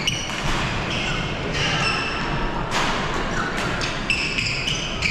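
Badminton rally: athletic shoes squeaking on the court floor, short high squeaks again and again, with a few sharp knocks of rackets striking the shuttle, over the steady din of a busy badminton hall.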